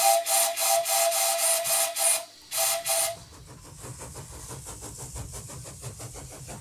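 Brass whistle on a large model showman's engine, blown on compressed air at only about 30 psi as a test of the new whistle: a hissy, pulsing toot lasting about two seconds, a brief break, then one more short toot.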